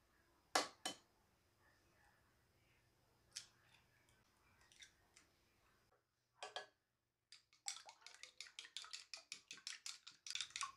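An egg rapped twice against the rim of a ceramic bowl, then a few lighter taps. In the last few seconds, wooden chopsticks beat eggs in the bowl, clicking against its sides about six times a second.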